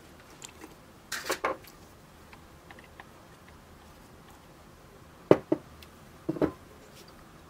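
Sharp clinks and knocks of a glass bowl and spatula against a ceramic mixing bowl as melted butter is poured and scraped into batter: a quick cluster about a second in, then two pairs of knocks near the end, the first pair the loudest.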